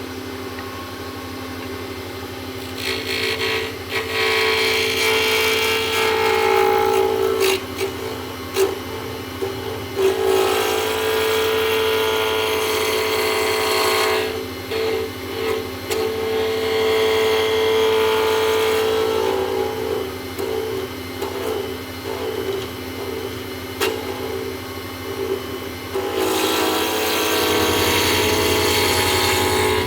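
WEN lathe motor running steadily with a hum while a round carbide turning tool cuts a spinning acrylic pen blank. The cutting comes as a scraping hiss in several passes of a few seconds each.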